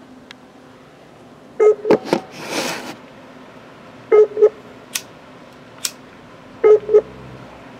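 Call ringing tone from a laptop, a short double ring that repeats about every two and a half seconds, three times, while the call waits to be answered. A few sharp clicks and a brief rustle come in between.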